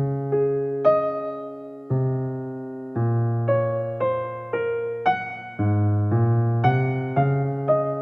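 Background music played on electric piano: a slow, gentle piece of struck chords and melody notes, with a new bass note and chord roughly every second.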